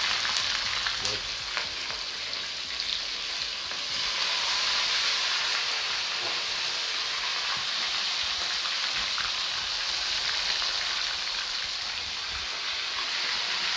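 Whole fish deep-frying in a pot of hot oil: a steady sizzle, with a few light clicks in the first couple of seconds.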